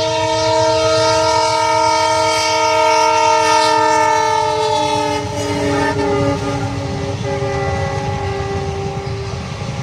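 Indian passenger train sounding its horn in one long held chord as it passes, the pitch dropping about halfway through as it goes by, over the rumble of its wheels on the rails.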